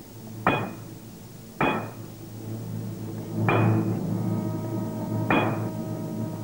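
A hammer striking a blacksmith's anvil four times at uneven intervals, each blow with a short metallic ring. Sustained background music comes in about halfway through.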